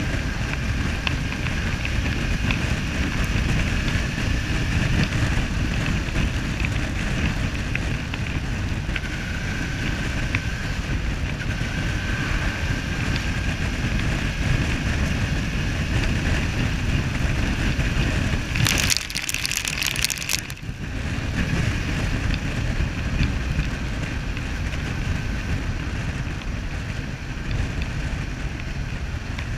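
Riding sound from a Suzuki V-Strom 650 on a wet road: wind buffeting the microphone, with the bike's V-twin engine and tyre hiss on wet tarmac under it. About two-thirds through, a short burst of high hiss cuts in while the wind noise briefly drops.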